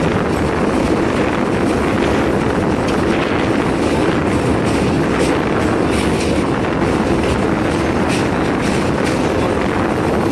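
A train running over a steel bridge, heard from its open door: a steady rumble of wheels on rail, with faint irregular clicks.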